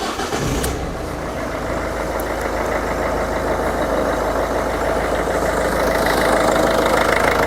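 Car engine running at idle right after being started on jumper cables from another car's battery, a steady dense running sound that grows slightly louder near the end.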